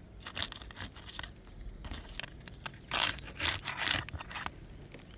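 Roof shingles being lifted and pried up, giving a series of gritty scrapes and tears that are loudest about three to four seconds in. The shingles are brittle, so they tear and break instead of lifting cleanly.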